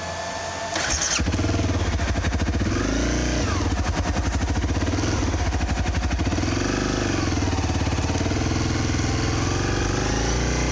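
Honda CRF250L's single-cylinder four-stroke engine pulling at low speed through deep water, getting louder about a second in as throttle is opened, then the revs rising and falling several times as the throttle is worked.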